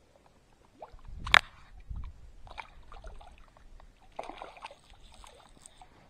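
Lake water lapping and sloshing at a rocky shore edge, with scattered small ticks, one sharp knock a little over a second in, and a short patch of splashing about four seconds in.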